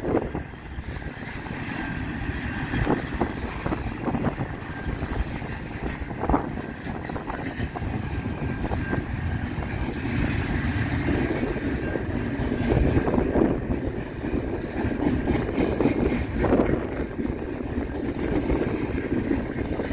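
Double-stack intermodal well cars rolling past: a steady rumble of steel wheels on rail, with an occasional sharp knock as wheels cross rail joints.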